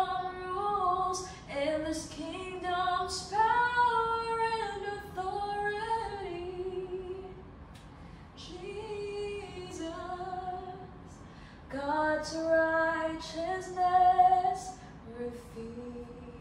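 Background music: a woman singing a slow Christian worship song with long held notes.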